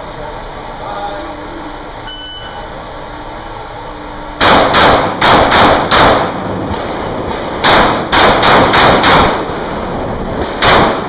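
A shot timer's short electronic beep, then handgun shots fired in quick strings: five, a pause, five more, then a single shot near the end. The reports ring off the walls of an indoor range.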